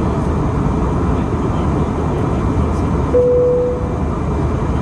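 Steady roar of an Airbus A319 passenger cabin in flight, engine and airflow noise. About three seconds in, a single cabin chime dings and fades within a second.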